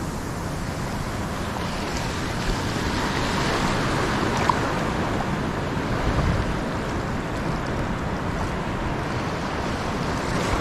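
Steady wash of sea waves with wind noise on the microphone, swelling slightly around the middle.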